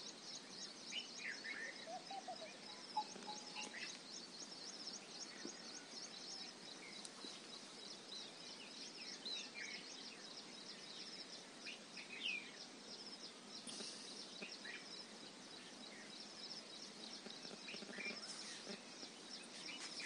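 Outdoor rural ambience: birds calling here and there over a high, thin chirping that repeats about three or four times a second.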